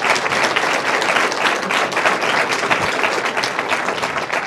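An audience applauding: many hands clapping steadily, beginning to die away near the end.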